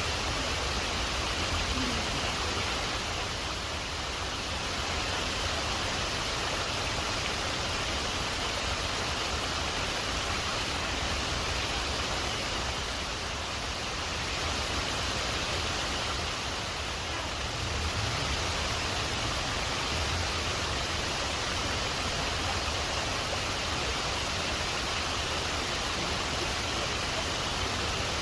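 Waterfall rushing steadily, an unbroken wash of falling water.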